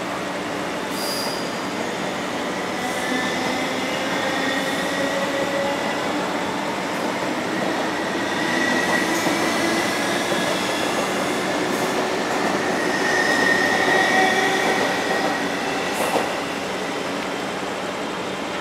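An approaching train's wheels squealing on curved track: several high, slightly wavering tones over a steady rail rumble. It grows louder to a peak about fourteen seconds in, then eases after a short click about sixteen seconds in.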